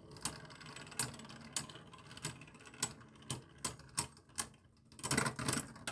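Plastic Beyblade Burst tops, Drain Fafnir and Doomsizer, clicking against each other and the stadium in a battle, with sharp irregular clicks about two to three a second.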